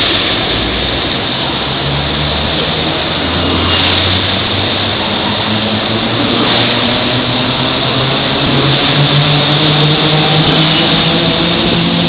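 Shanghai Maglev (Siemens Transrapid) train moving past close by: a steady rush of air with a low hum under it that shifts slowly in pitch.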